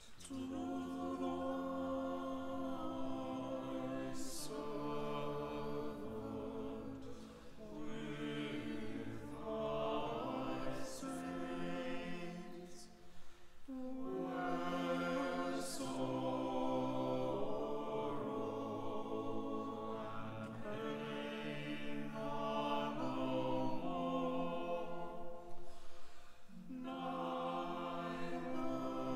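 A choir of pupils and staff singing unaccompanied: held chords in long phrases, with short breaks between them about seven, thirteen and twenty-six seconds in.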